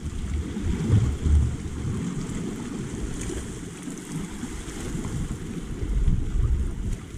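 Wind buffeting the microphone in uneven gusts, a low rumble, over the wash of small sea waves against shore rocks.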